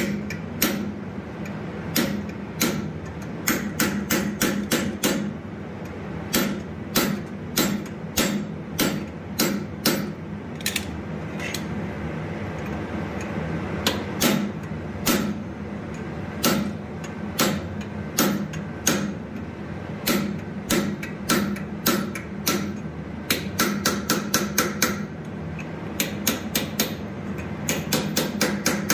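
Hammer blows on a hand-held fuller driven into hot steel clamped in a vise: a run of sharp metallic strikes, a few a second, with a short pause about halfway and quicker clusters near the end.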